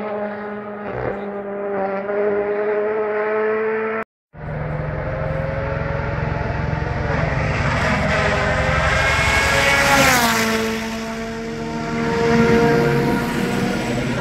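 Rally car engines at full throttle. After a cut about four seconds in, one car approaches with its engine note climbing, drops sharply in pitch as it passes about ten seconds in, then picks up again as it accelerates away.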